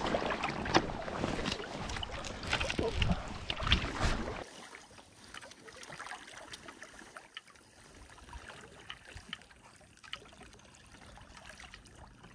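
Wind on the microphone and water sloshing and splashing as a hooked trout is brought to the surface. About four and a half seconds in, the level drops suddenly to quieter lapping water with faint splashes.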